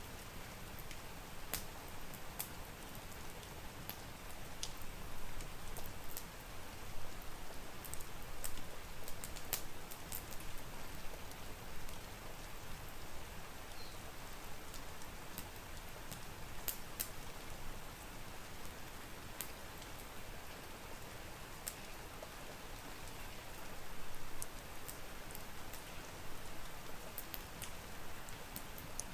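Steady rain with scattered sharp pops and clicks of a crackling wood fire.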